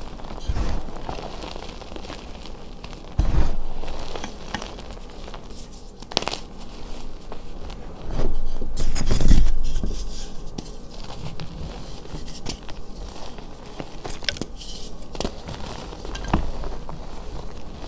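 Hands crushing and squeezing chunks of dyed gym chalk: irregular crunching and crumbling, with a few louder crunches, the loudest about eight to ten seconds in.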